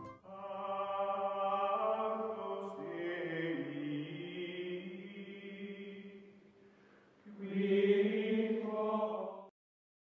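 Outro music of chant-like voices singing long held chords: one long phrase that fades out, then a louder second chord about seven seconds in that cuts off abruptly near the end.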